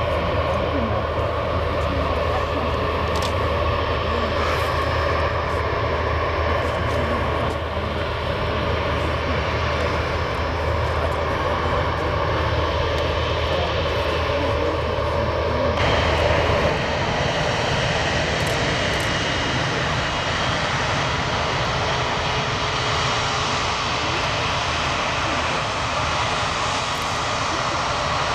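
Airbus A350-900's Rolls-Royce Trent XWB turbofans running at low taxi power as the airliner taxis, a steady jet engine rumble and hum. The tone shifts abruptly a little past halfway.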